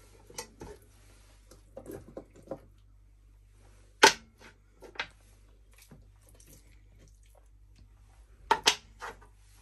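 Pieces of shank bone set one by one into the bottom of an empty metal cooking pot: a few sharp knocks, the loudest about four seconds in, another a second later and a quick double knock near the end, with lighter taps and handling in between.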